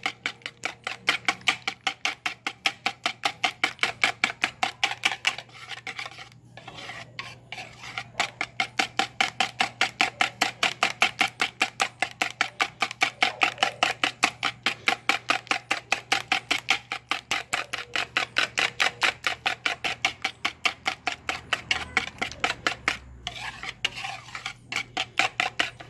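Wire balloon whisk beating eggs and flour in a plastic bowl: a fast, even rhythm of wire strokes against the bowl, several a second, pausing briefly about six seconds in and again near the end.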